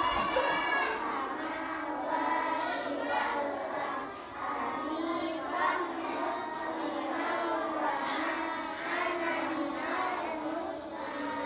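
A group of young children reciting the words of the prayer aloud together in a chanted, sing-song unison.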